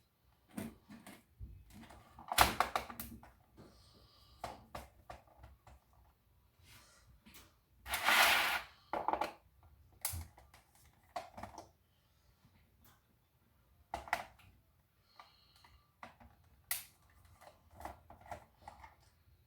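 Plastic computer keyboard being handled and worked on during disassembly: scattered clicks, knocks and plastic rattles, with a loud knock about two and a half seconds in and a longer rustling noise about eight seconds in.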